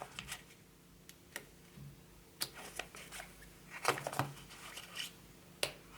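Faint, scattered clicks and plastic handling noises, about seven in all: a Kinder Joy egg's plastic toy capsule and wrapping being worked open by hand.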